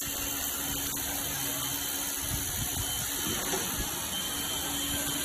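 Automatic longitudinal seam laser welding machine running as its head welds a seam in 0.6 mm stainless steel: a steady hiss with a low hum underneath.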